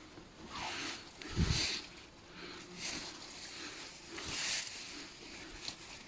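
Rustling and crunching handling noise in several separate short bursts, with one low thump about one and a half seconds in.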